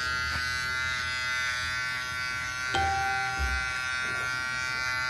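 Corded electric hair clipper buzzing steadily as it cuts hair at the back of the neck.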